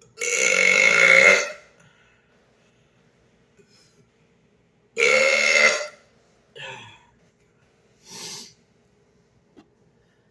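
A man burping loudly twice, each burp about a second long, the second some five seconds after the first. Two short, much quieter sounds follow.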